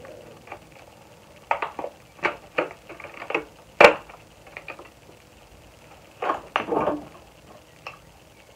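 Skincare products being unpacked from their small cardboard boxes: irregular rustling, scraping and tapping of packaging handled in the hands, with one sharp click about four seconds in.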